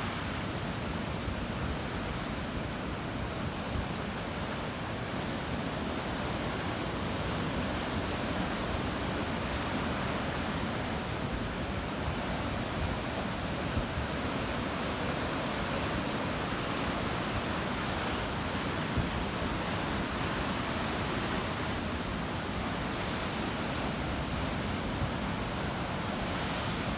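Black Sea surf: a steady wash of waves on the shore.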